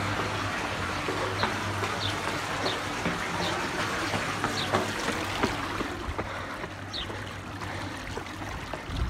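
Shallow water trickling along a concrete stormwater drain, with a few sharp clicks and taps at irregular moments.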